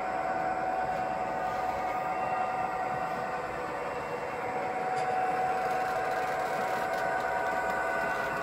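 Model Santa Fe F45 diesel locomotive running along the track with a string of container cars: a steady mechanical hum from the locomotive and its wheels on the rails, a little louder about halfway through as the train comes nearer.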